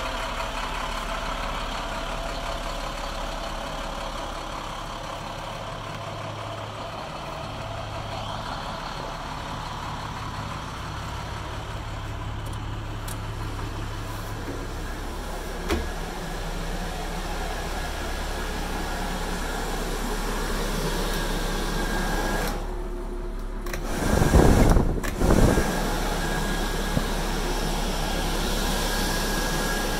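International DT466 inline-six diesel idling steadily. About three-quarters of the way through there is a brief dip, then a few loud low thumps.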